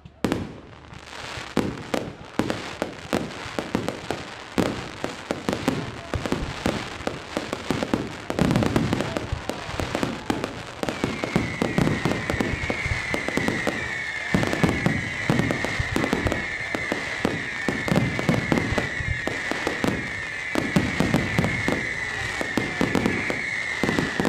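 Fireworks display: a dense, continuous run of bangs and crackling, with a high, wavering whistle setting in about halfway through.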